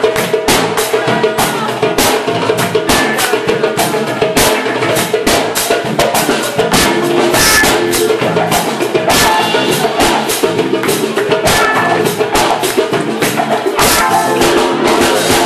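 Live band playing up-tempo dance music, carried by dense, rapid drum and percussion hits.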